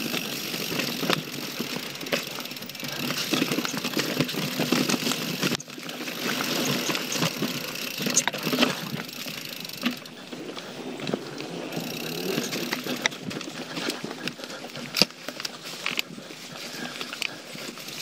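YT Jeffsy full-suspension mountain bike riding down dirt singletrack: steady tyre noise over dirt and dry leaves, with frequent clicks, knocks and rattles as the bike hits roots and bumps, the sharpest about three-quarters of the way through.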